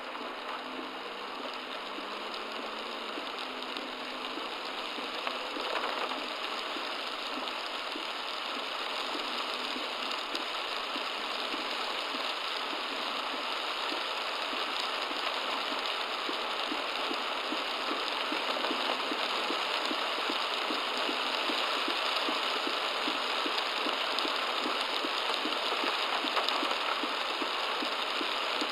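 Very heavy rain hitting a car's roof and windshield, heard from inside the car through a dashcam's microphone: a dense, steady patter of countless drops that slowly grows louder.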